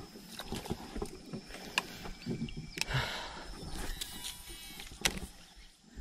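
Handling noise from a baitcasting rod and reel on a small boat: scattered sharp clicks, a short rush of noise about halfway through, and a brief buzz of the reel a moment later.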